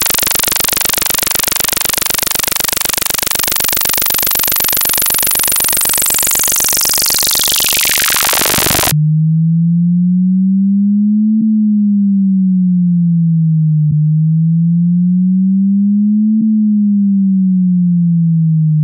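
Synthesized water-eject test signal, a tone made to shake water droplets out of a phone speaker's grille. A harsh, rapidly pulsing buzz sweeps down in pitch and cuts off abruptly about nine seconds in. A low pure tone follows, slowly wavering up and down in pitch, with a faint click every couple of seconds.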